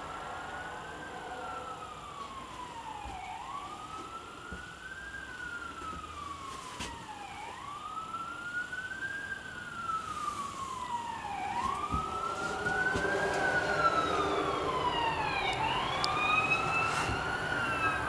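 Emergency vehicle siren wailing: a quick rise and a slower fall in pitch, repeating about every four seconds. It grows louder about two-thirds of the way through.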